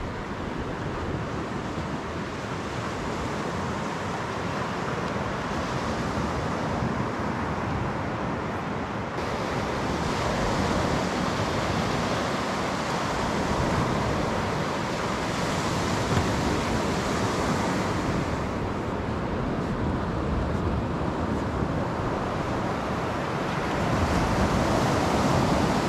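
Surf washing onto a sandy beach, a steady rushing noise that swells and eases slowly, with wind on the microphone.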